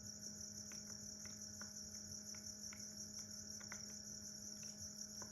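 Crickets chirping steadily and faintly, with a low steady hum beneath.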